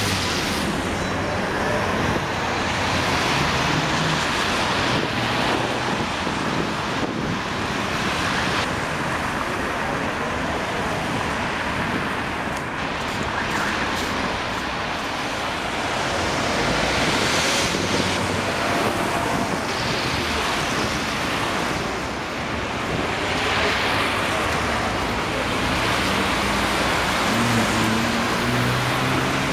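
Road traffic on a busy city street: a steady rush of cars and buses passing, swelling and easing as single vehicles go by. A trolleybus passes close near the end.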